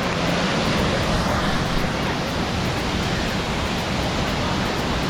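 Waterfall's water rushing, a loud steady noise that does not change.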